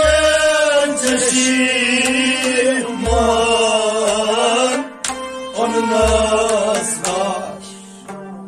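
Male voices singing a traditional song to harmonium and rabab accompaniment, with a deep low thump about every three seconds. Near the end the singing drops away, leaving a single held harmonium note.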